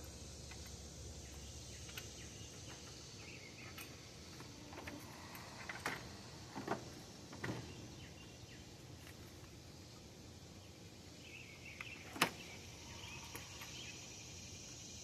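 A few light clicks and knocks of parts being handled over a faint steady hiss, with three knocks close together around the middle and the sharpest single one near twelve seconds.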